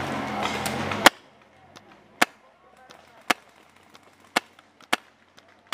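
Paintball marker firing: a dense rapid rattle for about the first second, then five or six single sharp shots, roughly one a second.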